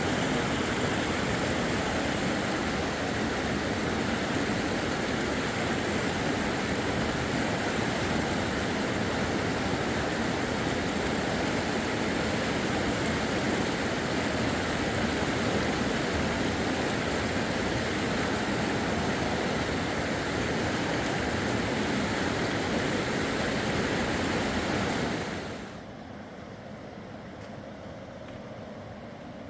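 Steady rushing of fast-flowing river water, dropping abruptly to a quieter rush near the end.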